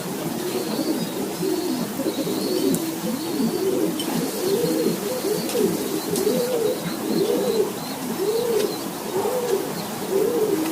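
Racing pigeons cooing. Several birds overlap at first, then the rising-and-falling coos come in a steady run of about one every three quarters of a second.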